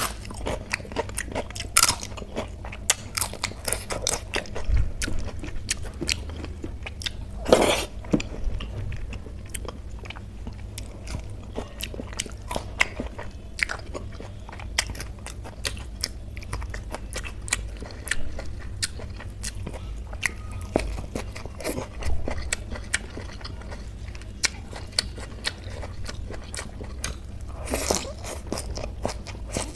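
Close-miked eating: chewing and biting with crisp crunches and wet mouth clicks, from a mouthful of fried papad and kadhi-soaked rice and pakoda eaten by hand.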